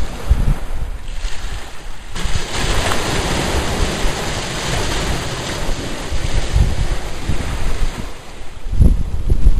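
Ocean surf breaking and washing up the beach: a rushing hiss that swells about two seconds in and fades near the end. Wind buffets the microphone with low rumbles at the start and near the end.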